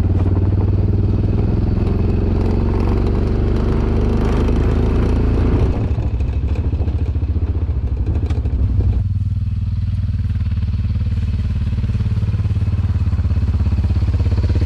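Side-by-side utility vehicle driving, its engine running steadily under wind and tyre noise. About nine seconds in the higher noise drops away and the low engine sound carries on.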